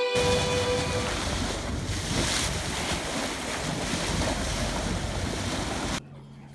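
Wind buffeting the microphone and water rushing along the hull of a fishing boat under way, with a low rumble underneath. A held music note fades out in the first second. About six seconds in, the sound drops suddenly to a much quieter scene with a steady low hum.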